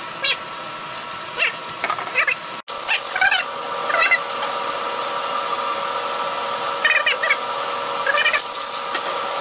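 Short, wavering, high-pitched animal calls, repeated every second or so, over a steady hum.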